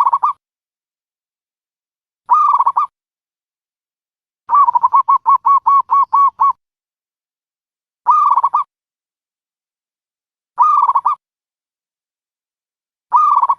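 Dove cooing: short coos about 2.5 seconds apart. A rapid run of about ten quick notes, roughly five a second, comes in the middle.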